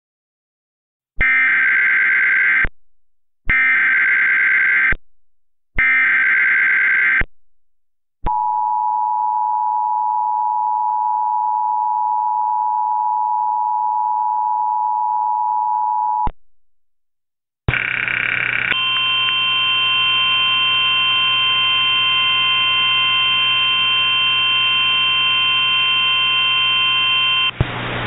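Emergency Alert System broadcast. It starts with three short bursts of SAME digital header data, about a second and a half each, then the two-tone EAS attention signal held for about eight seconds. After a short gap comes a steady hiss and hum with several held tones, the failed alert audio, which breaks into louder static near the end.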